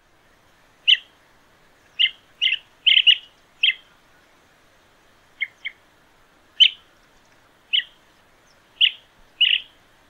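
Chestnut-headed bee-eater calling: about a dozen short high calls at irregular intervals, some single and some in quick pairs.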